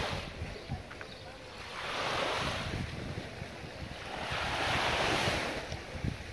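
Small waves breaking and washing up a sandy beach, two surges about three seconds apart, with wind buffeting the microphone.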